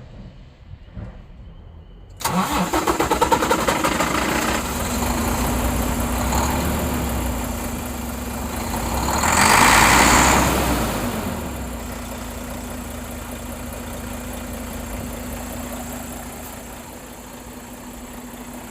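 Volvo semi truck's diesel engine catching on starting fluid (ether) sprayed into its air intake about two seconds in, running rough at first, revving up briefly around ten seconds, then settling into a steady idle. The engine had lost its fuel prime and would not start without the ether.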